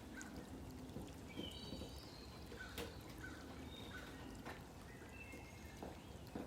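Birds chirping with short, scattered calls over a steady low background rumble, with a few faint clicks.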